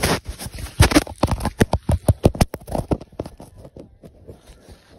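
Rapid, irregular crunching and knocking of deep powder snow against the handheld phone and its microphone, as the snowboarder pushes through a tight spot in snowy trees. The knocks are loudest and closest together for the first three seconds, then thin out.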